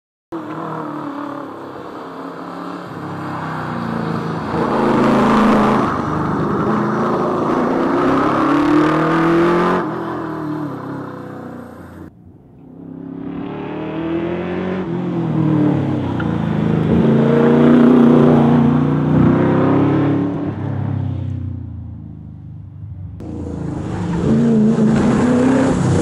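Holden VH Commodore SS's V8 engine revving hard and rising and falling through the gears as the car accelerates along the road. The sound cuts off abruptly and starts again twice.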